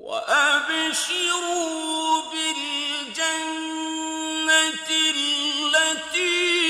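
Melodic Quran recitation by a single voice, starting abruptly out of silence and holding long notes with wavering, ornamented turns, with short breaks between phrases.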